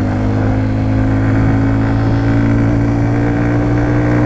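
Sinnis RSX 125 motorcycle engine running at steady revs while riding, heard from on board, its pitch holding level.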